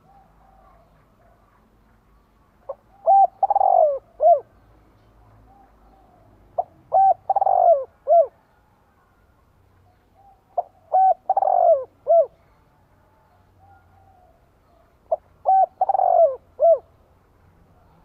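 Spotted dove cooing: four phrases about four seconds apart, each a few short coos around one longer, falling coo.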